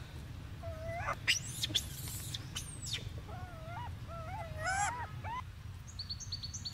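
Infant rhesus macaques cooing: a string of short, high calls, each rising and then falling in pitch, coming in quick clusters. A few sharp clicks sound between the calls about a second to two and a half seconds in.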